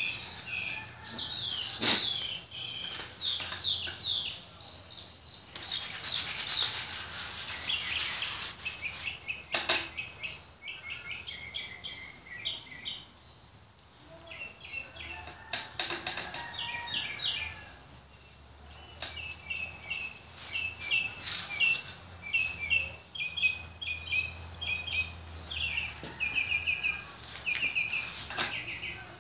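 Birds chirping and singing, many short rapid calls overlapping without a break, with a couple of sharp knocks about two seconds in and again near ten seconds.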